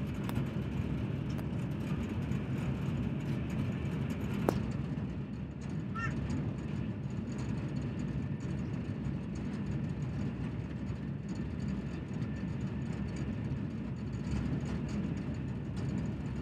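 Passenger train running, a steady low rumble, with a single sharp click about four and a half seconds in.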